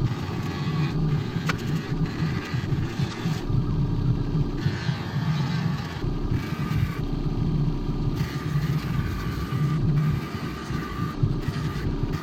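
Power tool spinning a cleaning wheel against a dirt-bike exhaust silencer to polish it: a steady motor-driven grinding-buffing sound, with a few brief lulls where the higher part of the sound drops away.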